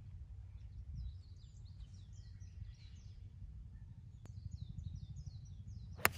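Small birds chirping repeatedly over a low steady rumble of outdoor air. Near the end, one sharp crack: a 5-iron striking a golf ball.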